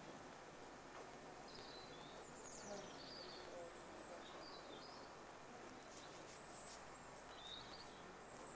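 Near silence outdoors, a faint steady hiss with a few brief, high bird chirps scattered through it.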